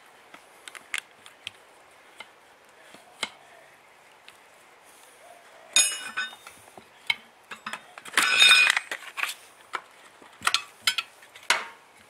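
Steel tyre levers clinking and knocking against a 17-inch alloy rim and each other as a 4WD tyre's bead is pried up over the rim edge, with two louder ringing metal clanks about six seconds in and just after eight seconds in.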